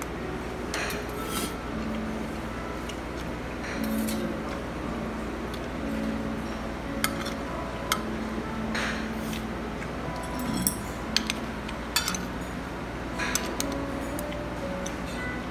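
A metal spoon and chopsticks scraping and clinking against a ceramic plate as fried rice is scooped up. Several sharp clinks come in the second half.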